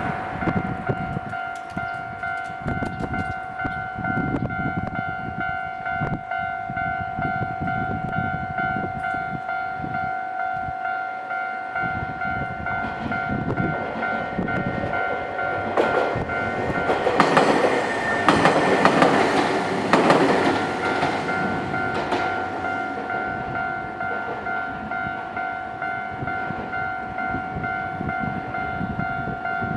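A railway level-crossing warning bell rings its repeating electronic tone on the JR Kisei Main Line. A train passes over the crossing from about 16 to 22 seconds in, and that passage is the loudest part.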